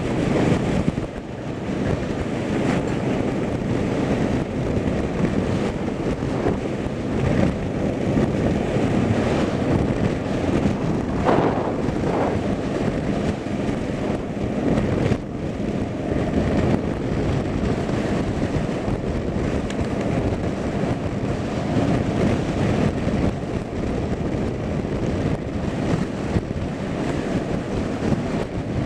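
Steady wind noise buffeting the microphone outdoors, a continuous rumbling hiss with no clear tones.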